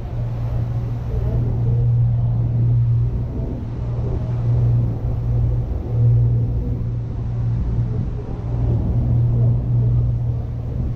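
Dive boat's engine running with a steady low drone, with water and wind noise over it.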